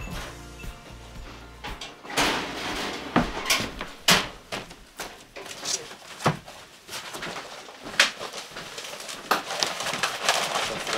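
Cardboard boxes and papers being handled and shifted: rustling with scattered sharp knocks and thuds.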